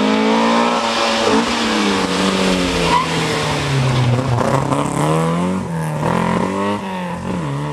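Opel Kadett GT/E rally car's engine passing close by. Its revs fall as it slows into a hairpin, then climb hard in several rising pulls, each cut short by a quick gear change, as it accelerates away.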